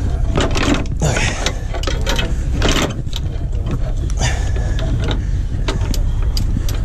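Heavy steel recovery chain clinking and scraping as it is fed and wrapped around a semi trailer's spring shackle, irregular metal-on-metal rattles, over a steady low rumble.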